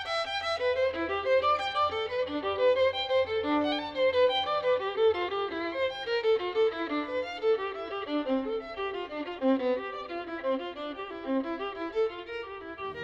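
Background music: a violin playing quick, busy runs of notes, breaking off at the very end.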